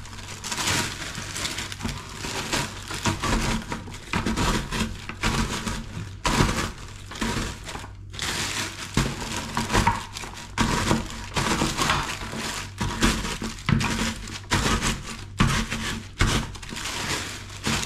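A rolling pin pressed and rolled over baked crumble in a plastic bag: the dry pieces crunch and break and the bag crinkles, stroke after stroke, with a short pause about eight seconds in.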